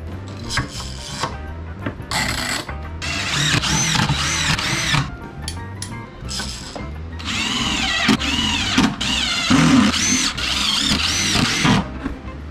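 Cordless drill driving wood screws in several short runs; each time the motor's whine rises and then falls in pitch.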